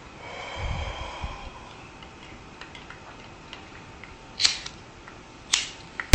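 Quiet handling noises with a few small clicks and a soft low thud about a second in; the two loudest, sharpest clicks come about a second apart near the end.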